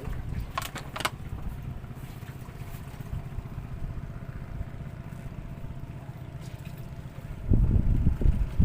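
Steady low engine rumble, with a few sharp clicks about a second in and loud low thumps near the end.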